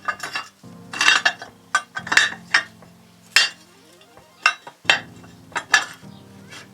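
Sharp metal clinks and knocks as a VAZ 2107 camshaft is set back into its seat in the camshaft housing, a dozen or so irregular strikes of steel on metal.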